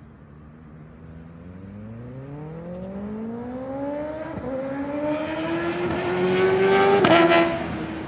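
A vehicle accelerating hard toward and past the roadside, its engine note rising steadily as it gets louder, with one upshift about four seconds in. It is loudest as it passes, with a brief rasp, then the note drops a little as it pulls away.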